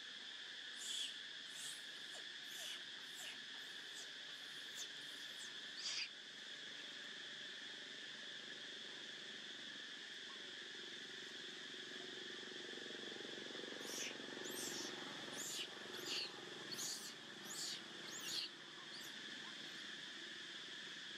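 Steady outdoor insect chorus, a continuous two-toned drone, with short high squeaks: a few in the first six seconds and a quick run of about eight near the end.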